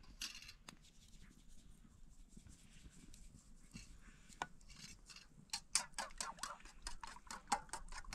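A spoon clinking and scraping in a small metal bowl while eggs are mixed. There is a few scattered clicks, a single sharp knock about halfway through, then a quick run of rapid clinks over the last few seconds as the eggs are beaten.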